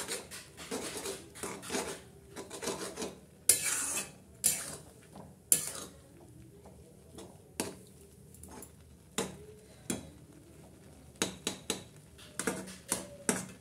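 Metal spatula scraping and knocking against a metal kadhai as noodles are stirred and tossed, in irregular strokes. A few louder knocks come a few seconds in, and a quick run of clinks comes near the end.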